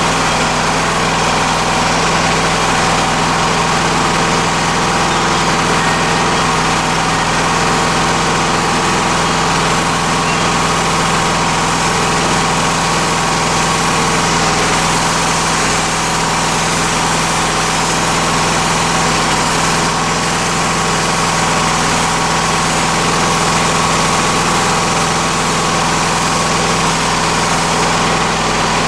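Freshly rebuilt MI-T-M CW-3004 pressure washer running steadily, its engine holding an even note under a constant hiss.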